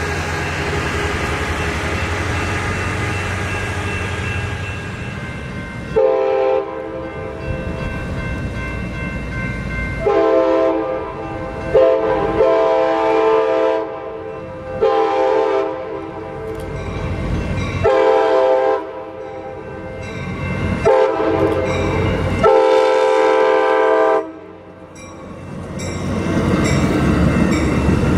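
A freight train rolling past with a steady rumble, then a cut to an Amtrak California passenger train sounding its horn in a series of about seven blasts, long and short. Near the end the horn stops and the bilevel cars rumble past close by.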